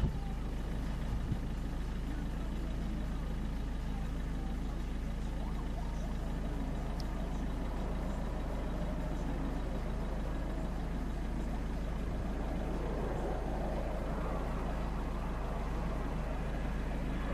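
Steady low rumble of distant jet aircraft engines running at low, taxiing power, with no change in level.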